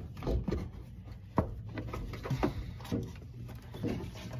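Scattered light clicks, knocks and rubbing as a rubber puck is pressed into the coil spring's upper seat and the air hose is handled, with one sharper knock about a second and a half in.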